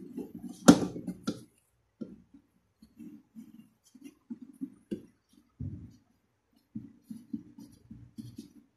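Plastic toilet cistern parts being handled and fitted: a sharp click about a second in, another soon after, then a run of small dull knocks and bumps as the float ball and arm are worked onto the fill valve.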